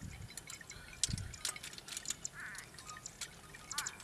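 Outdoor background sounds: scattered sharp high ticks and short chirps, with two brief wavering chirps past the middle and near the end, and a low thump about a second in.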